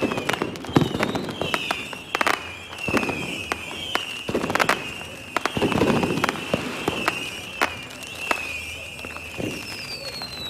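Fireworks going off: irregular sharp bangs and cracks, several louder booms among them, over a high wavering whistle that runs throughout, with a falling whistle near the end.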